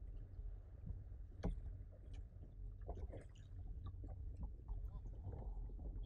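Sea water slapping against a plastic fishing kayak's hull under a steady low rumble, with scattered small clicks and knocks; one sharper knock about a second and a half in.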